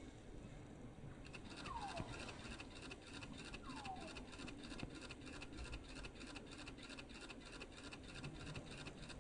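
Jungle ambience: a bird gives a short falling whistle twice, about two seconds apart, over a fast, even ticking of insects that starts about a second in.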